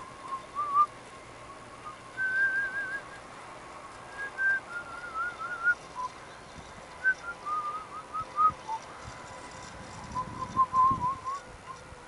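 Whistling in short, wavering phrases of a tune, several times over.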